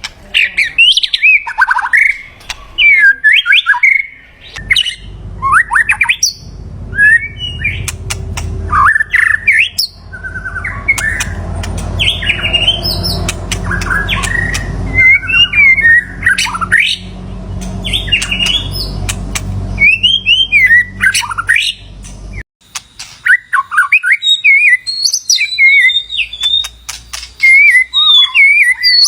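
White-rumped shama singing: rich, varied whistled phrases of quick gliding notes and sharp calls, coming in bursts with short pauses. A low rumble runs under the song through the middle and cuts off suddenly a little over 22 seconds in.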